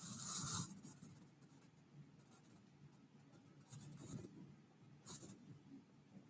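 A few faint, brief scratchy rustling sounds in a quiet stretch: one as it begins, lasting about half a second, a fainter one about four seconds in, and a short one about five seconds in.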